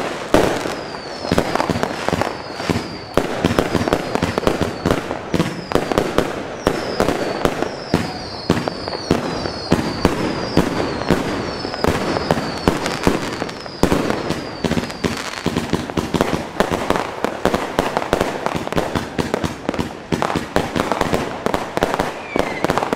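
Funke Cloud Connected firework battery, a large compound cake with nearly 3 kg of net explosive mass, firing a rapid, unbroken barrage of launches and bursting shells with crackling. Short high falling whistles recur through roughly the first two-thirds.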